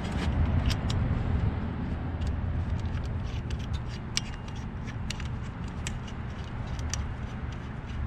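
Small metallic clicks and light scraping as an oil return line fitting is screwed by hand onto the AN adapter in a turbocharger's return port, over a steady low rumble.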